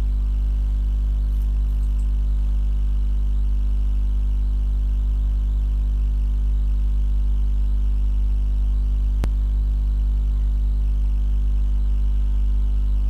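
Steady low electrical hum with many steady overtones above it, unchanging throughout, and one sharp click about nine seconds in.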